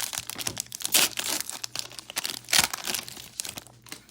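Plastic trading-card pack wrapper crinkling and being torn open, with two louder rips, one about a second in and one past halfway, then quieting near the end.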